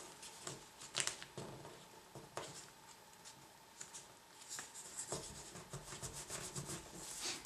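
Sheet of paper being folded and creased by hand: quiet rustling and crinkling, with a sharper crackle about a second in and a run of small crackles near the end.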